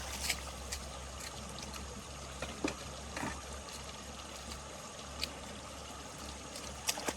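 Water trickling and flowing steadily, with a few small splashes and ticks.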